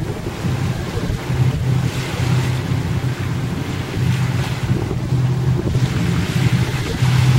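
Wind buffeting the microphone over a choppy sea, with a steady low rumble underneath that swells and fades unevenly.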